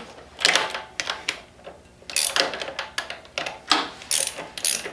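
A 17 mm ratcheting wrench clicking in short, irregular bursts as it backs off the front sprocket bolt of a BMW F800GS, with small metallic clinks between the bursts.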